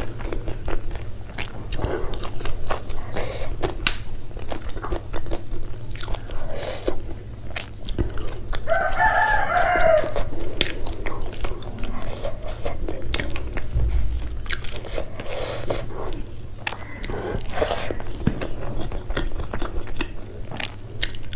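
Close-miked chewing of a mouthful of rice eaten by hand, with wet mouth clicks and smacks throughout.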